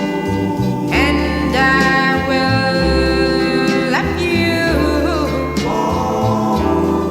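Background music: a song with a singer's voice over instruments.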